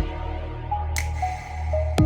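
Electronic background music: held synth notes over a steady low bass, with a sharp click about once a second.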